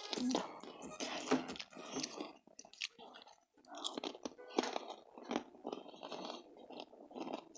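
A person chewing crunchy food, a run of irregular crunches.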